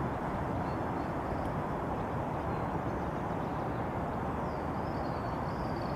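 Steady rushing of a strong wind blowing across the microphone.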